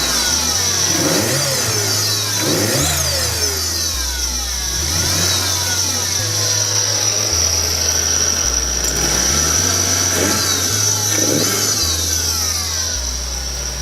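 Turbocharged Toyota AE86 4A-G engine being blipped about six times, the revs rising and falling, over a steady high-pitched squeal from its second-hand Garrett 2860 turbo, which the owner takes for failed turbo bearings.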